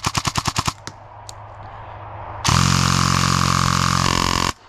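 Airsoft M4 electric gun with a DSG gearbox firing a rapid, even string of shots, about a dozen a second, which stops under a second in. About halfway through, a loud steady noise with a hum starts and cuts off abruptly near the end.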